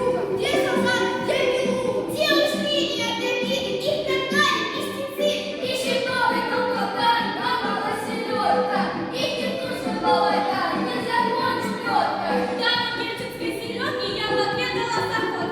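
Music with singing: a melodic vocal line over a steady instrumental backing.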